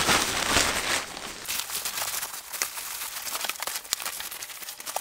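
Fabric backpack rain cover rustling and crinkling as it is pulled over the bag and smoothed down, loudest in the first second or so, then softer rustles with a few light ticks.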